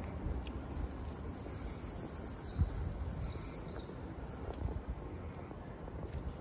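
Insects chirping in a continuous high-pitched trill that swells and fades in repeated pulses, over a faint low rumble.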